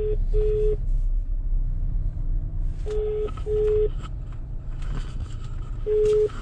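Telephone ringback tone through the car's hands-free speaker: a pair of short beeps, repeating three times about three seconds apart while the outgoing call rings. Under it runs the car's steady low rumble.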